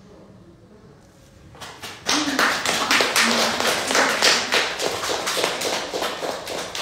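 A small group of people applauding, starting about a second and a half in with quick, uneven hand claps that swell and keep going.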